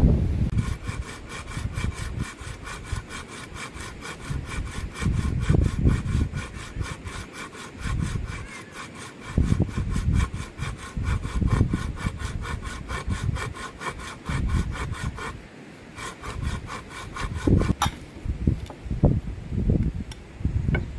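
Folding hand saw cutting through a dry bamboo pole in quick, even strokes, about four a second, with a short pause a little past the middle. Gusts of wind buffet the microphone underneath.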